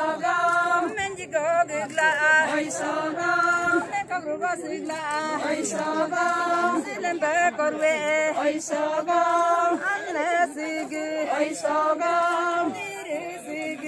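A group of Galo women singing a traditional chant together, in short repeated phrases of held notes.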